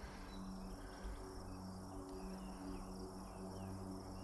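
Steady high-pitched insect trilling, with a few faint distant bird chirps and a low steady hum beneath.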